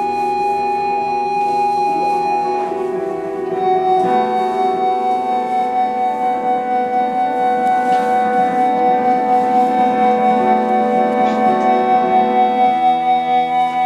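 Live folk ensemble of fiddle, concertina and keyboards playing a slow piece of long held chords. The chord changes about four seconds in, and from then on the sound swells and fades in a steady pulse about two to three times a second.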